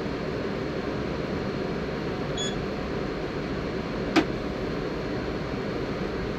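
Steady hum and whir inside a NesoBus hydrogen fuel-cell bus, with a faint short beep about two and a half seconds in and a single sharp click about four seconds in.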